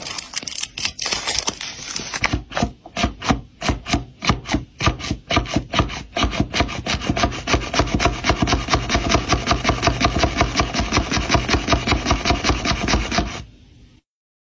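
Rhythmic rasping scrapes, like a hard textured tip worked against a surface. They start slowly, speed up to a fast, even run of several strokes a second, and stop suddenly near the end.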